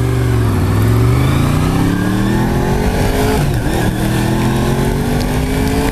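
1993 Honda VFR750 RC36 V4 engine accelerating hard, rising in pitch through one gear, dropping briefly for an upshift about three and a half seconds in, then rising again through the next gear. Underneath is a steady rush of wind and wet-road tyre noise.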